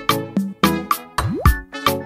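Background music with a steady beat: struck notes about four times a second, with one note that slides upward a little past halfway.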